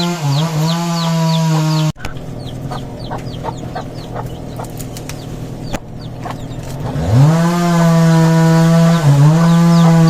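Small petrol engine running at high revs with brief dips in pitch; it cuts off suddenly about two seconds in. Chickens clucking and birds chirping follow. About seven seconds in the engine revs up again and keeps running loud, dipping in pitch now and then.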